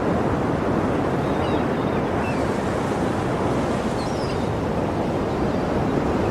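Sea surf: a steady, unbroken rush of waves, with a few faint high chirps around the middle.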